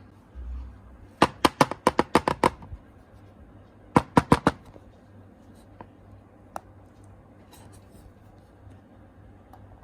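Two quick runs of sharp clicks: about nine within a second and a half, then four more a moment later, with a soft low thump just before the first run and a few faint ticks afterwards.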